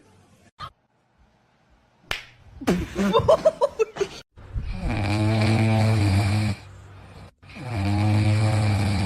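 Loud snoring: two long, drawn-out snores of about two seconds each, with a short break between them, after a brief wavering whine.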